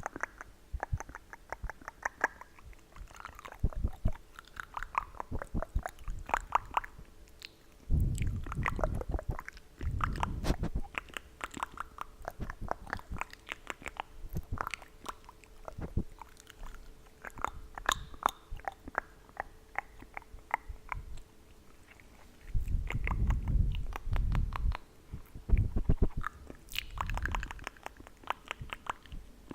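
Close-miked ASMR tongue clicks and wet mouth sounds, many sharp clicks a second in irregular runs. Twice there are short stretches of heavy breathing on the microphone, which sits too close.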